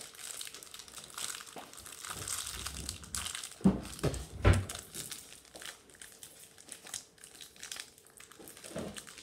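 Plastic packaging crinkling and rustling as small slime kit sachets are pulled and worked open by hand, without scissors. Two dull thumps come about three and a half and four and a half seconds in.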